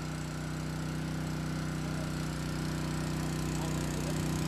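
Small engine-driven portable water pump running steadily just after starting, drawing water from the river through its hose.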